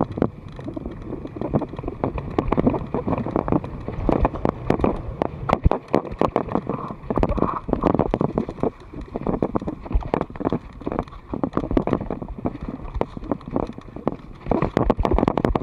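Mountain bike running fast down a dirt and grass trail: tyres rumbling over the ground and frequent irregular knocks and rattles from the bike over bumps, with wind buffeting the microphone.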